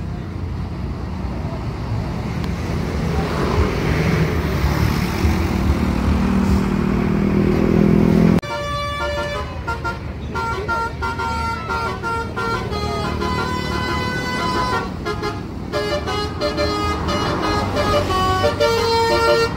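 A bus engine revving up, its pitch rising and growing louder. About eight seconds in, an abrupt cut to a bus's Basuri telolet horn playing a tune of quickly changing notes.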